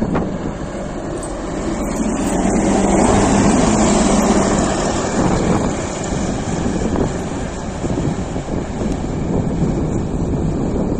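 Motor grader's diesel engine running steadily as it works through snow on the road, loudest a few seconds in.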